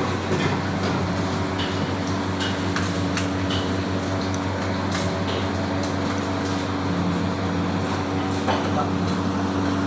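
Steady low mechanical hum of kitchen machinery, with scattered light clicks and knocks.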